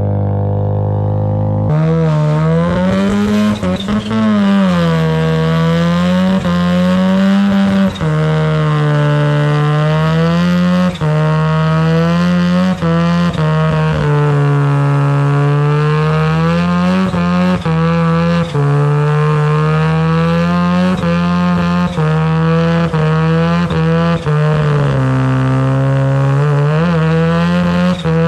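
Mazda FD RX-7's turbocharged twin-rotor engine revving hard under load during skids. The revs swing up and down every couple of seconds, with short sharp drops in between.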